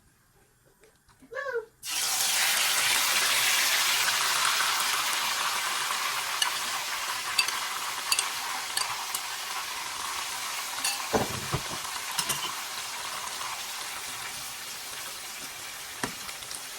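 Hot oil bursts into a loud sizzle about two seconds in, as something goes into it, and the sizzle slowly dies down with small pops and spatters. There are a few low knocks from a utensil partway through and again near the end.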